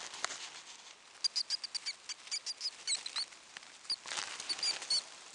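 Pet mice squeaking: a quick run of short, high chirps, over rustling in the wood-shaving and paper nest bedding.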